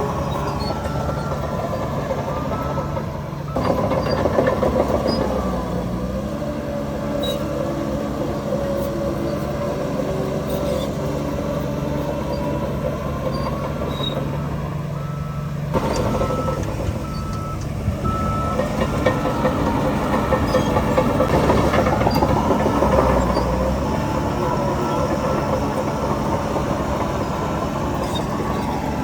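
Heavy diesel machinery running steadily under load, with a vehicle reversing alarm beeping at times, near the start, around the middle and again at the end.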